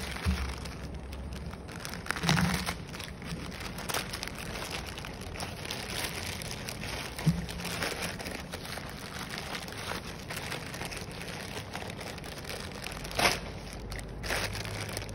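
Plastic courier mailer bags crinkling and rustling as they are handled and torn open, with a few louder crackles, the loudest about two and a half seconds in and near the end.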